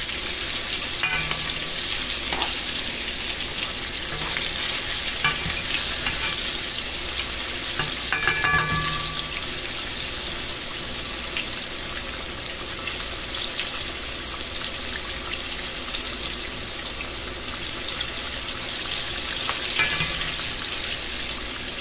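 Breaded salmon pieces deep frying in a pot of hot oil, the oil bubbling and sizzling steadily. A few brief clinks of metal tongs in the pot, one about eight seconds in and one near the end.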